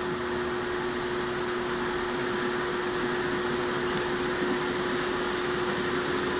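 Toshiba AW-404 fully automatic washing machine running: a steady motor hum with a constant tone, and a single sharp click about four seconds in. The owner calls the noise abnormal, after the machine was carried lying on its side.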